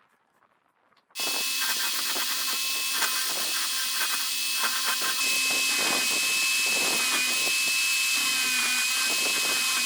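Handheld power tool working wood, cutting in abruptly about a second in: a steady high whine over a dense hiss, with the pitch dipping slightly now and then as the tool is loaded.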